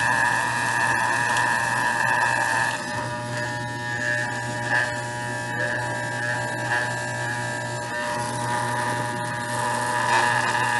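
Corded electric dog clippers buzzing steadily while trimming a dog's face. The buzz drops a little and turns uneven from about three seconds in, then comes back up near the end.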